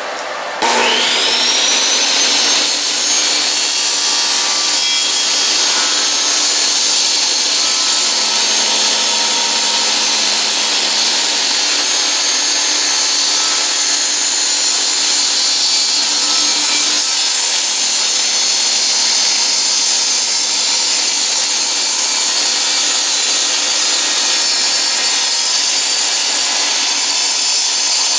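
Electric power saw starting up about half a second in with a quickly rising whine, then running steadily while cutting through wood.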